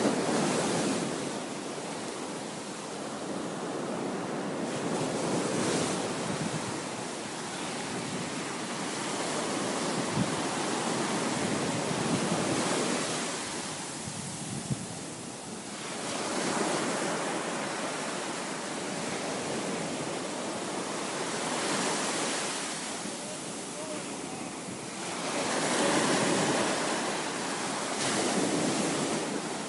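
Ocean surf breaking and washing up a beach, swelling and fading every few seconds, with wind buffeting the microphone.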